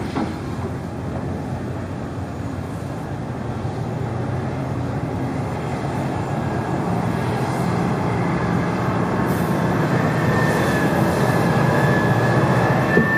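Large hydraulic excavators (a Komatsu PC1250 and a Caterpillar 385) and articulated dump trucks working, their diesel engines running under load with a steady low rumble. The noise grows louder, and a high steady whine joins in during the second half.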